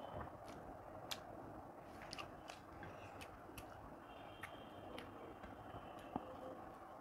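Person chewing a mouthful of rice close to the microphone: faint, irregular mouth clicks and smacks, about two a second.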